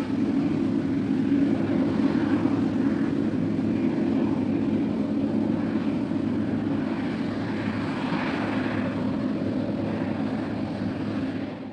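Claas Lexion 630 combine harvester running while harvesting, a steady engine and threshing drone that fades out at the very end.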